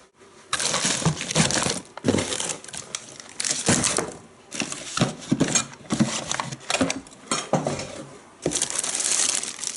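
Irregular bursts of rustling and clattering from objects being handled, with small hard clicks and clinks mixed in.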